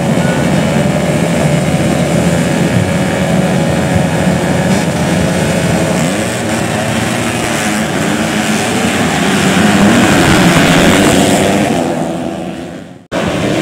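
A field of dirt-bike engines running and revving together at a grasstrack start line, many pitches overlapping and rising and falling. The sound swells a little louder, then fades out near the end.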